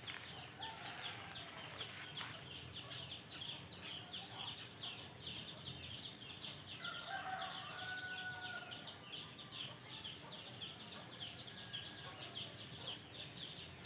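A rooster crowing faintly about halfway through, over a fast, steady high chirping.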